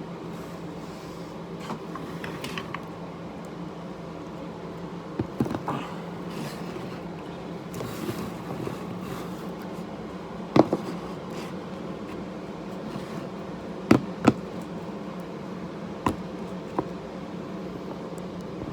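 Steady hum of a fan, with a handful of sharp knocks and taps as things are handled and set down, the loudest about ten and fourteen seconds in.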